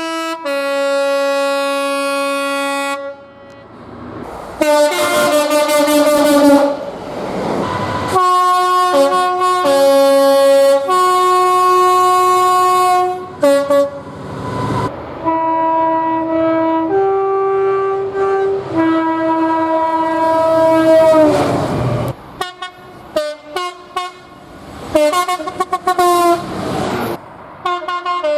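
Train horns sounding a series of long blasts, each a chord of several steady notes, with the rush of passing trains under some of them. The blasts come from different horns cut one after another, so the chord changes abruptly several times.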